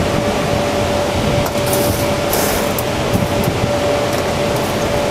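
Steady, loud running of crematorium machinery, a large fan or blower, with a constant whine held on one pitch. A few brief higher hisses come about two seconds in.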